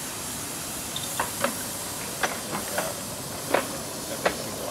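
Steady hiss of steam from a 7.5-inch gauge live steam locomotive, with sharp, irregular knocks and clanks, about six of them from about a second in, as the loaded transfer table is shifted along its rails.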